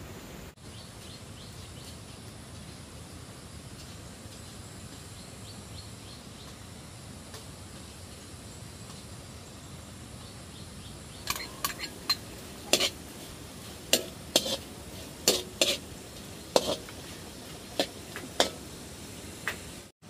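Food frying in a pan with a steady sizzle. From about eleven seconds in, a utensil clinks sharply against the pan a dozen or so times at irregular intervals.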